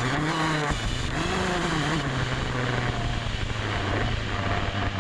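Dirt bike engine ridden on the track, revving up and easing off twice in the first two seconds, then holding a steady drone at even throttle. Wind rush on the bike-mounted camera runs underneath.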